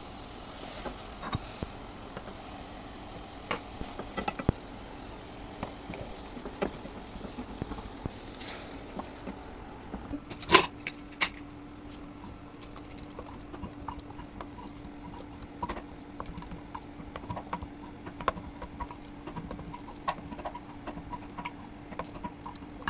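Scattered light clicks and knocks of things being handled during kitchen work, with a louder clatter about ten seconds in. A low steady hum comes in at about the same time and holds.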